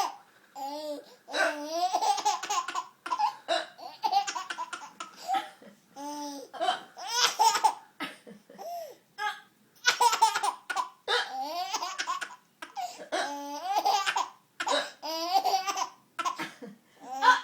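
Baby laughing in a string of short bursts, with hiccups breaking in.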